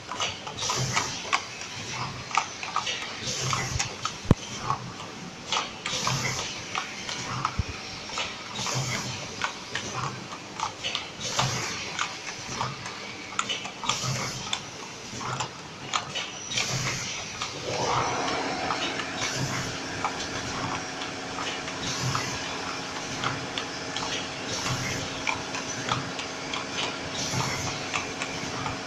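Automatic packaging machine running: dense mechanical clicking and clacking in a regular cycle that repeats a little more than once a second. About two-thirds of the way in, a motor starts with a short rising whine and then hums steadily under the clatter.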